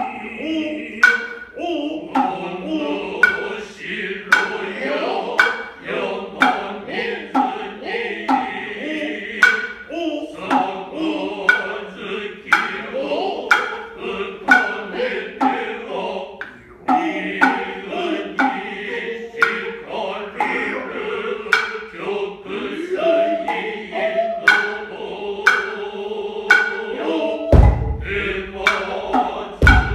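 Noh chorus chanting in unison, with sharp tsuzumi hand-drum strokes about once a second. Near the end, two heavy stamps of a dancer's foot on the wooden Noh stage, about two seconds apart.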